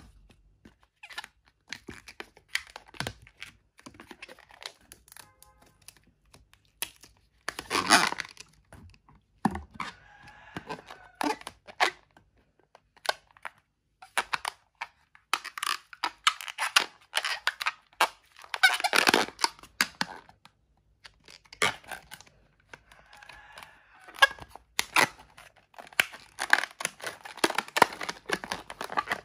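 Inflated latex modelling balloon squeaking and creaking as it is twisted into bubbles, with rubbery rasps and crackles in irregular bursts; the loudest bursts come about 8 and 19 seconds in.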